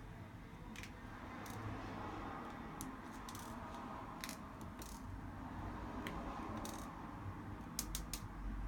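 Scattered small clicks and light taps of hand tools on a smartphone's parts during disassembly, several close together near the end, over a steady low hum.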